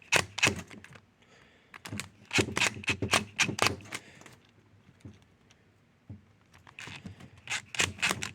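Screwdriver tightening the small screws of a replacement plastic plug on a power cord: three spells of quick clicking and scraping, with quiet pauses between.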